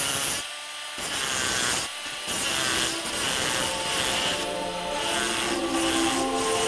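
Handheld Proxxon rotary tool grinding away a cement fill on a wall, a steady high abrasive whir, cutting out briefly about half a second and about two seconds in.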